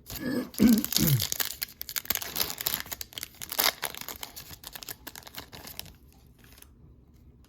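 A foil trading-card pack being torn open and its wrapper crinkled: a dense run of crackling and tearing that stops abruptly about a second before the end.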